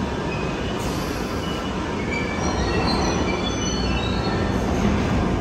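A London Underground Piccadilly line 1973 Stock train running through the station, a loud rumble of wheels on rails with short, high-pitched wheel squeals that come thickest in the middle and later part.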